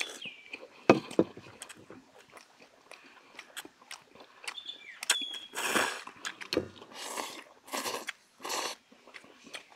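People slurping thin wheat noodles: several noisy slurps in the second half, with chewing and smacking between them. A couple of sharp clicks about a second in are the loudest sounds.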